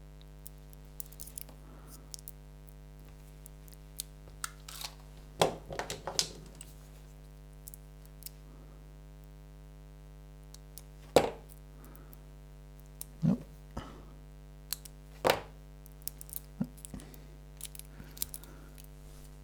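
Scattered crinkles, cracks and clicks of a thin plastic sleeve being picked and pulled off the wires inside a stripped cable, over a steady low electrical hum.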